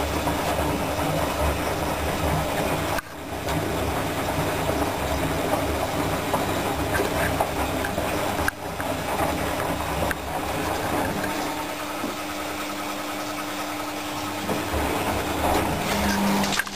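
Predom Polar Westa 85 front-loading washing machine washing: the drum turns the wet, soapy load with a steady motor hum. The sound drops out briefly twice, about three seconds in and again about eight and a half seconds in.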